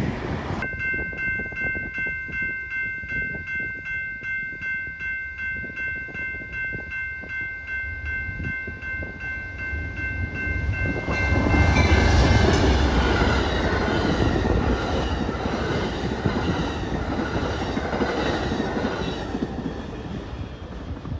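Railroad crossing bell ringing in quick repeated strokes, about two a second. About eleven seconds in, the Amtrak California Zephyr, a diesel locomotive with double-deck passenger cars, reaches the crossing and passes at speed in a loud rush of engine, wheel and rail noise that drowns out the bell.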